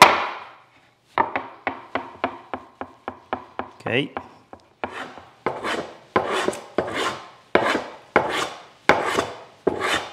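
First a quick run of light wooden knocks, about five a second, as the board is rocked on the benchtop to find its high spot. Then from about halfway a scrub plane takes heavy strokes across the board, one rasping cut roughly every two-thirds of a second, shaving down the high corner.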